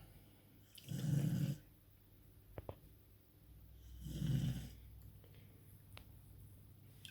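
Sleeping dog snoring very loud: two long snores about three seconds apart, each a low rumbling breath.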